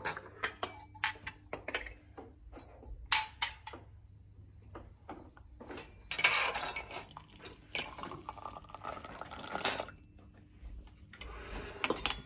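Sharp clinks of glass and cutlery on a breakfast table, then tea poured from a copper Turkish double teapot (çaydanlık) into a tulip-shaped tea glass, in two pours: a long one about six seconds in and a shorter one near the end.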